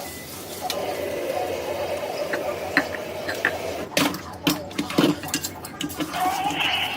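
Rice being rinsed in a strainer under running water, with clinks and knocks of the strainer against the dish. The knocks cluster about four to five and a half seconds in.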